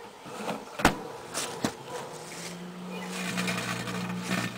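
Two sharp clicks, then a microwave oven starts up about two seconds in and runs with a steady low hum.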